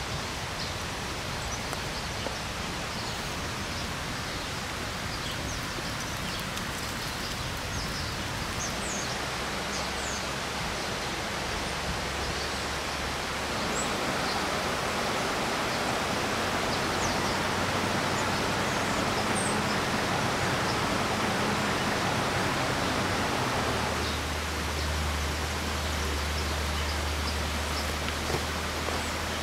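Steady rush of river water, a little louder and brighter through the middle stretch, with short high chirps now and then.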